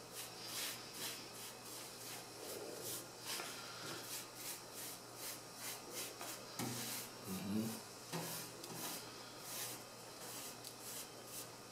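Paintbrush bristles sweeping soot across the inside of a wood-burning cookstove, a quick run of short, scratchy strokes that pushes the soot down into the combustion chamber.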